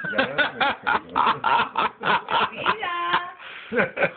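Adults making playful wordless baby-talk sounds and chuckles at a newborn: quick short syllables, about four a second, with one higher held coo about three seconds in.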